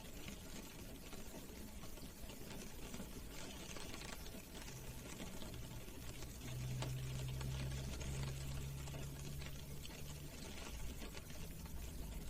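Rain pattering on a car's roof and windows, drops tapping steadily, heard from inside the car. A low hum comes in about a third of the way through and grows louder past the middle.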